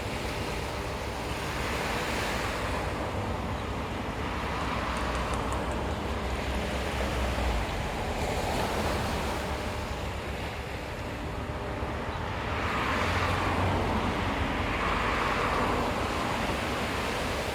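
Ocean waves breaking on a sandy beach, the surf swelling and receding in slow surges every few seconds, with a low rumble and some wind buffeting the microphone.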